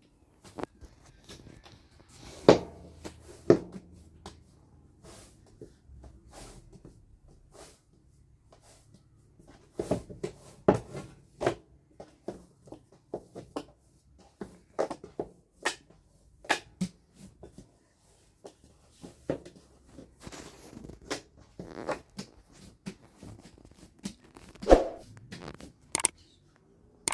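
Irregular knocks, taps and clatter of things being handled in a small room, a few of them louder.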